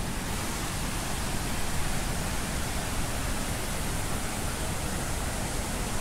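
Steady rushing of a large waterfall, a continuous even noise with no breaks.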